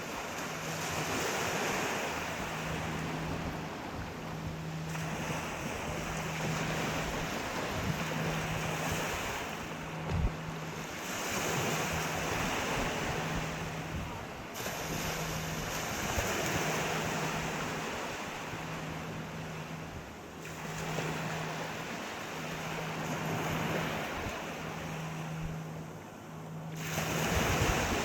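Sea waves breaking and washing up the shore, the rush swelling and falling back about every five seconds.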